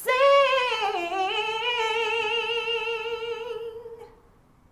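A woman singing alone, unaccompanied, with vibrato: a note that slides down about a second in, then a long held note that fades out near the end.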